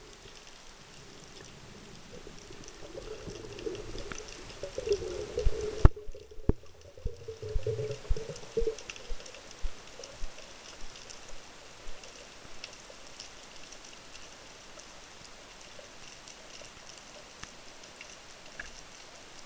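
Underwater sound during a spearfishing dive: water rushing, building for a few seconds, then a run of sharp knocks and thumps from about six to twelve seconds in, settling into a steady faint hiss with fine scattered crackles.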